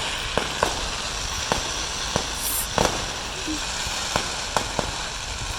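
Fireworks going off: a dozen or so sharp pops and bangs at uneven intervals over a steady background hiss.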